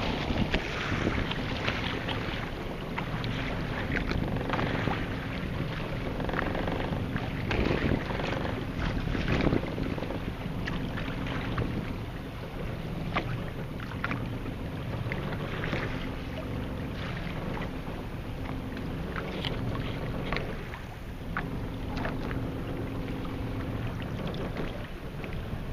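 Wind buffeting the microphone and water splashing and slapping against the hull of a small boat at sea, with a faint low steady hum underneath.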